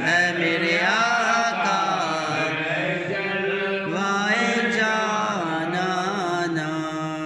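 A man reciting an Urdu naat, singing with long, sliding phrases in one continuous voice.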